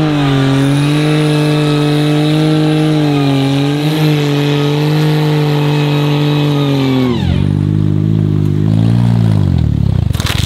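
Lifted Smart car's small three-cylinder petrol engine held at high, steady revs as it drives through mud, then the revs drop sharply about seven seconds in and run lower for a couple of seconds. A brief sharp noise comes at the very end.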